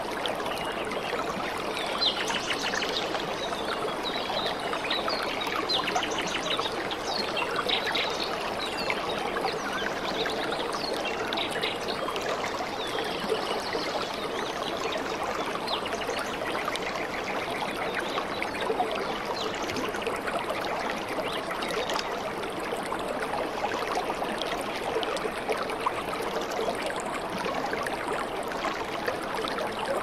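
Small waterfall and stream: water running and trickling steadily over rocks, with many small splashes.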